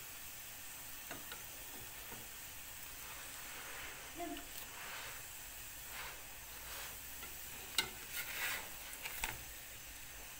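Msemmen flatbread frying with a steady sizzle in a nonstick frying pan, still browning. Near the end a few sharp knocks and scrapes of a spatula against the pan as the bread is lifted and turned.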